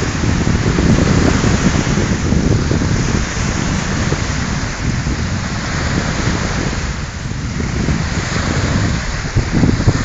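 Strong wind buffeting the phone's microphone in a loud, gusting rumble, over choppy lake waves washing onto the shore.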